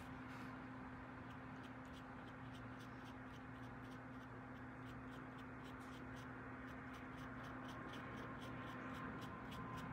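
Small paintbrush dabbing and stroking gouache onto paper: a run of short, soft scratchy ticks, about two to three a second, over a faint steady hum.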